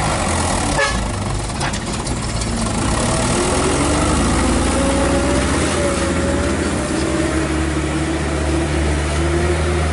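Mitsubishi Colt Diesel 100 PS truck's diesel engine running steadily: a low drone with a faint whine that drifts in pitch. The engine is old and weak, too short of power to climb the hill.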